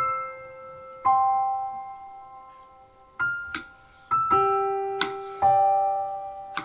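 Slow solo piano music, single notes and chords ringing out about once a second. Midway, two short crisp knocks about a second and a half apart: a knife cutting through melon onto a wooden cutting board.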